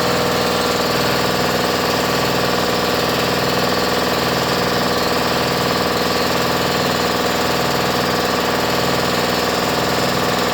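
Porter-Cable 30-gallon, 1.6 hp oil-lubricated air compressor running steadily, its electric motor and piston pump refilling the tank after kicking on at about 125 psi. The running is even and unbroken, and measured at about 88 decibels.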